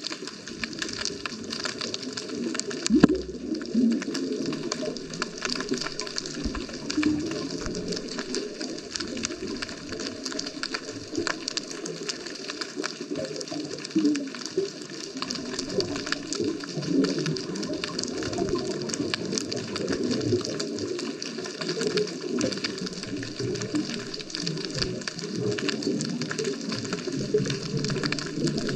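Underwater ambience heard through a GoPro's waterproof housing: a steady fine crackling with bubbling and gurgling water, and one louder knock about three seconds in.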